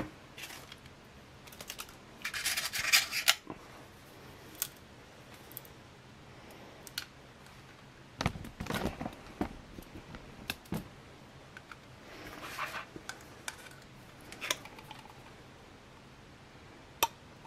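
Intermittent scraping and clicking of food tins and a stainless steel compartment tray being handled. Louder scratchy scrapes come about two seconds in, around eight seconds and around twelve seconds, with single clicks in between.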